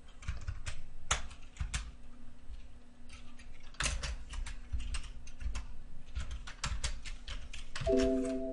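Typing on a computer keyboard: quick, irregular keystroke clicks while code is entered in an editor. A short steady tone, the loudest moment, comes in near the end.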